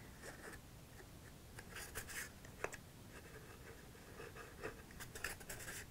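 Faint rustling and light scratching of cardstock handled in the hands while the nozzle of a liquid-glue squeeze bottle is drawn along the paper tabs, with a few soft clicks and taps scattered through.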